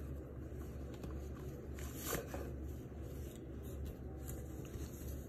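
Soft rustling of a cotton drawstring dust bag as its cords are loosened and it is pulled open, with a slightly louder rustle about two seconds in, over a low steady hum.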